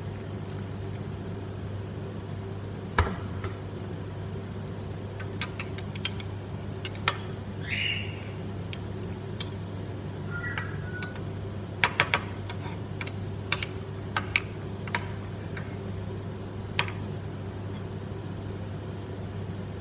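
Light, irregular clinks and taps of kitchen utensils and glassware over a steady low hum.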